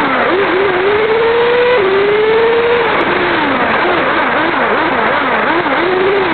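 Radio-controlled model car's motor whining, heard from a camera riding on the car, under a heavy steady rushing noise. Its pitch climbs for over a second, drops, then swoops up and down quickly again and again as the throttle is worked.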